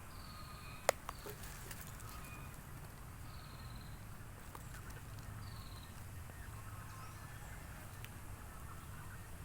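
Faint bird calls: a few short, falling chirps spaced a couple of seconds apart, over a low steady hum, with a single sharp click about a second in.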